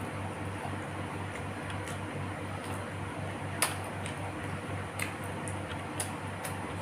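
A steady low hum that pulses evenly about four times a second. Over it come a few sharp clicks of eating and mouth sounds, about three and a half, five and six seconds in.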